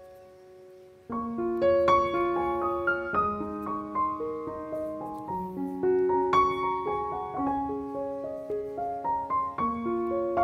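Background piano music: it fades out at the start and a new phrase of piano notes begins about a second in.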